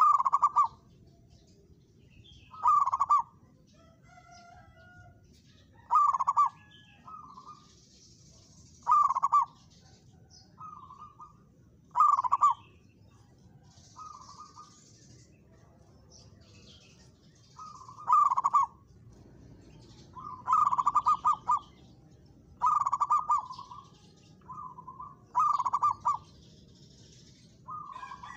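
Zebra dove cooing: short rolling coos repeated about every three seconds, most followed by a fainter, shorter coo about a second later. Faint high chirps sound in the background.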